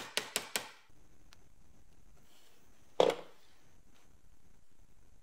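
Metal work at a bench vise on a wire mincer leg. A quick run of sharp clicks stops within the first second, then one loud knock comes about three seconds in.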